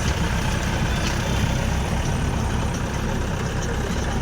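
A heavy vehicle's diesel engine running steadily, its sound mostly low-pitched and even.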